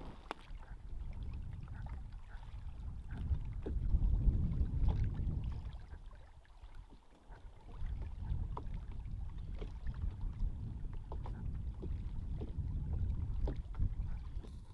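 Wind buffeting the microphone over choppy lake water, with water lapping against a canoe; one strong gust about four seconds in, a brief lull, then steady wind again.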